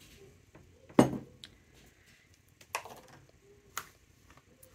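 A glass jar set down on a hard table with a single sharp knock about a second in, followed by two softer knocks while fabric strips are handled in a plastic tub.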